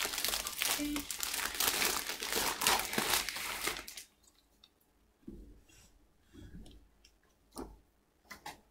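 Crinkling and rustling as comic books are handled and swapped, dense for about the first four seconds, then a few soft rustles and taps.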